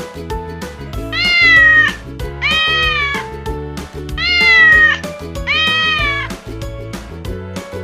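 Domestic cat meowing four times, each meow drawn out and arching up then down in pitch, over background music with a steady beat.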